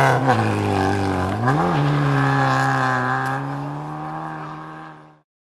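Lada rally car engine running hard at high revs, its note dipping and climbing back twice early on, then held steady while it fades out near the end.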